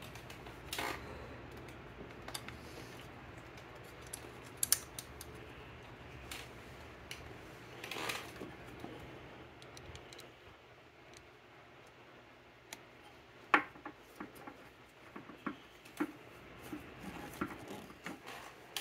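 Quiet, scattered metallic clicks and taps of hand tools and small engine parts being handled while a carburetor is fitted to a Vespa scooter engine, with the sharpest click about two-thirds through and a cluster of lighter taps near the end.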